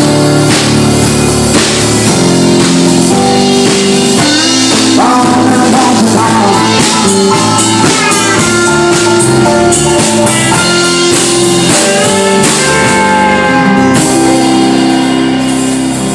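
Small rock band playing an instrumental passage of an original country-rock song, with drum kit and guitars at a loud, steady level and held, bending guitar notes over the chords.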